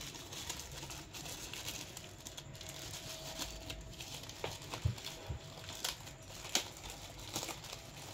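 Thin plastic wrapping crinkling and rustling as hands unwrap a tablet charger, with a couple of soft knocks about five seconds in.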